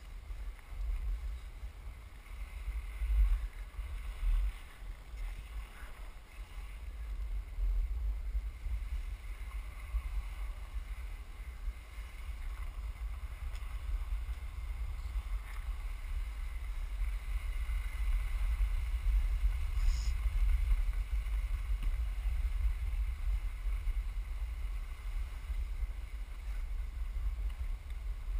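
Wind buffeting an action camera's microphone as a skier descends a groomed run, a heavy rumble, with the steady hiss of skis running over the snow. It gets louder about eight seconds in and stays that way.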